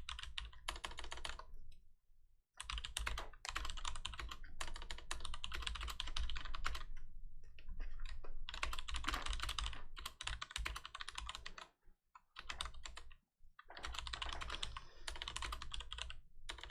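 Typing on a computer keyboard: fast runs of key clicks broken by brief pauses.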